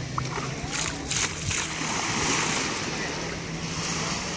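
Water poured out of a plastic tub splashing onto wet sand, mostly in a short spell about a second in, over the steady wash of small waves on the shore.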